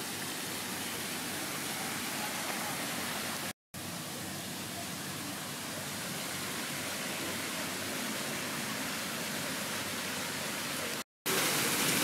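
Steady rushing noise with no distinct events, cut off twice by brief dead-silent gaps where the recording is edited. It is somewhat louder after the second gap.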